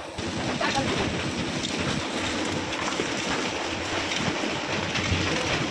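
Steady machinery noise of a rusk bakery's production floor, with light clatter throughout.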